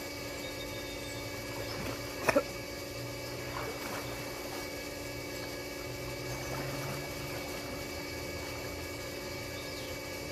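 Water sloshing and lapping as swimmers move through a pool, over a steady mechanical hum, with a sharp double click about two seconds in.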